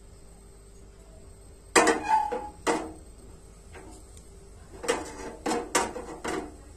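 Kitchen utensils and dishes clinking and knocking: a series of sharp clatters, one ringing briefly about two seconds in, with more knocks near the end.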